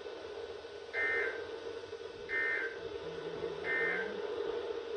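Three short bursts of EAS/SAME data tones, the buzzy two-tone digital screech of an emergency alert broadcast, about 1.3 seconds apart, over a steady broadcast hum. Short, triple bursts coming right after the spoken message mark the alert's end-of-message signal.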